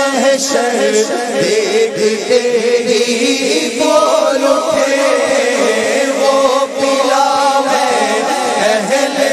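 A chorus of voices chanting a devotional naat in long, wavering sung phrases.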